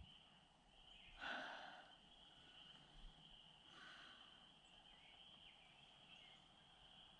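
Near silence: faint outdoor ambience with a steady high-pitched hum, and a soft, brief rustle or breath about a second in.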